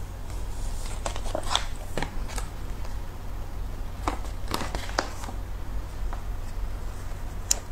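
Scattered light crackles and ticks from a foil packet being handled and put aside, over a steady low hum, with one sharper tick near the end.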